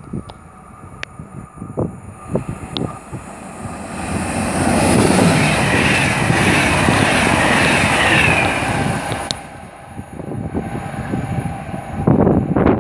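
InterCity train of double-deck coaches with an Sr2 electric locomotive passing through the station without stopping. Wheel-on-rail and air noise swells about four seconds in, stays loud with a high hiss for about five seconds, then falls away. A short clatter comes near the end.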